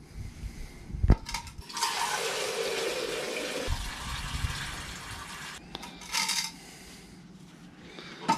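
A sharp knock about a second in, then water running from a rainwater tank's tap into a plastic jug, filling it, for about four seconds. A short splash of water follows near the end.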